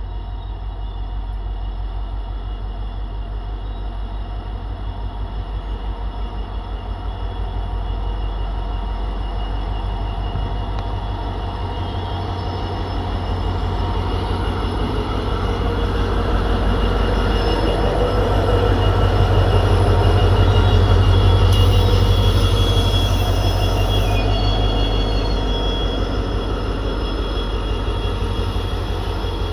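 EMD two-stroke diesel locomotive engine humming: a steady, low, pulsing throb that grows louder to a peak about two-thirds of the way through and then eases slightly.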